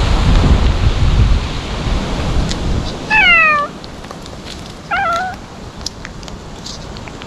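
A stray cat meows twice: a falling meow about three seconds in and a shorter, wavering one about two seconds later. A low rumbling noise fills the first three seconds and dies away just before the first meow.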